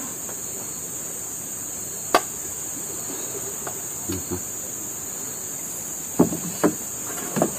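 A steady high-pitched drone of insects, with a sharp tap about two seconds in and a few softer knocks near the end as rice is scooped from a pot with a plastic paddle.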